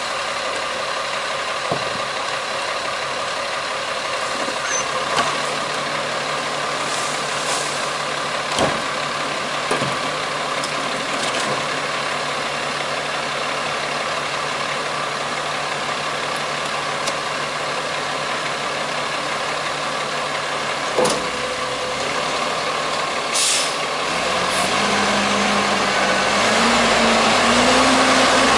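Peterbilt 320 refuse truck's diesel engine idling, with scattered knocks and thuds as green waste and cans are tipped into its front-loader hopper. Near the end comes a short hiss of air from the brakes, then the engine pitch climbs in steps as the truck pulls away.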